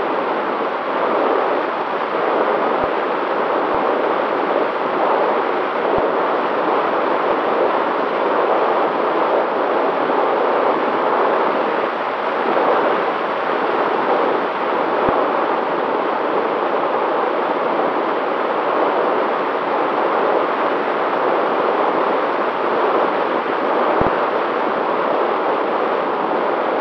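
Steady rush of airflow and motor noise from a long-range FPV aircraft in flight, picked up by its onboard camera, with a faint steady whine underneath.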